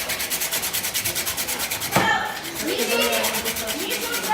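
Slot cars running on the track: a fast, even rasping pulse of about ten strokes a second, with a sharp click about two seconds in.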